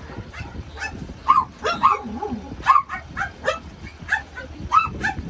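Several crated dogs barking and yipping, short sharp barks coming irregularly, about two a second.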